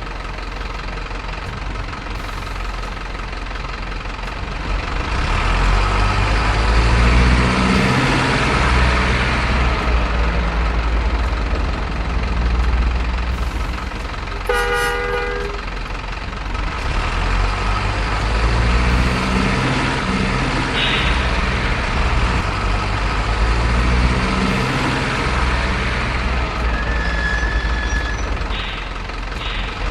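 Heavy diesel trucks running and pulling past, their engines swelling and falling several times, with one short horn blast about halfway through.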